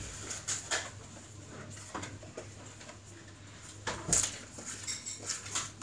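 Scattered light knocks and rustling of someone moving about and gathering foam Nerf darts, with one louder knock about four seconds in.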